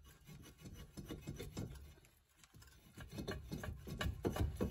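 Faint rubbing and scraping with a patter of small metal clicks and knocks as a gloved hand handles the rusty brake rotor and hub, busier in the last second or so.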